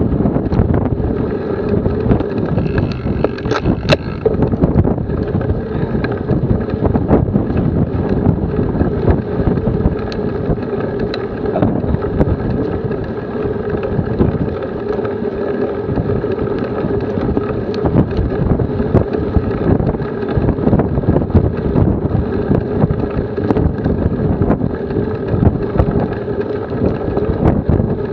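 Wind buffeting the microphone of a Garmin VIRB action camera on a moving bicycle: a constant, loud, low rumble that gusts unevenly, with a steady hum underneath.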